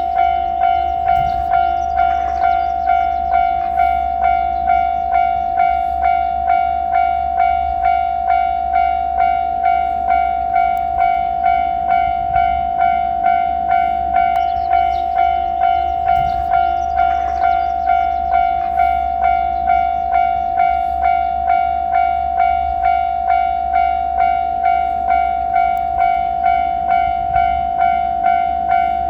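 Japanese level-crossing warning bell ringing: an electronic ding repeating at an even pace on one steady pitch, the signal that a train is approaching and the crossing is closed.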